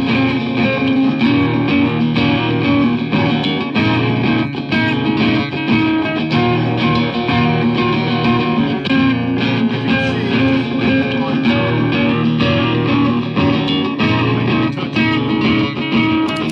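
Electric guitar strummed and played back as a loop through a Donner looper pedal, steady and loud, cutting off suddenly at the very end as the loop is stopped.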